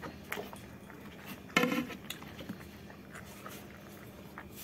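Quiet eating by hand: soft chewing and small mouth clicks, with a short voiced sound about a second and a half in.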